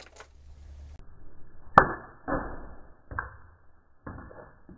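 Impacts of a crossbow bolt bursting a shaken can of fizzy drink: a sharp hit a little under two seconds in, then three duller thuds.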